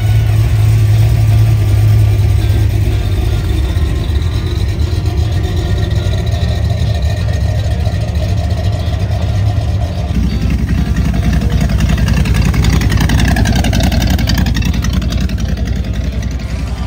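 Classic car engines running. A C3 Corvette's V8 runs with a steady deep tone as the car pulls away. About ten seconds in the sound changes abruptly to another hot rod's engine, whose pitch dips and then rises again.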